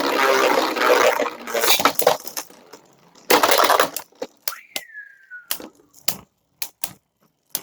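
Two spinning Beyblade tops, one a 3D-printed Drahken Nexus, grinding and clattering against each other and the plastic stadium in loud bursts. About four and a half seconds in comes a brief falling whine, followed by scattered sharp clicks of light contacts.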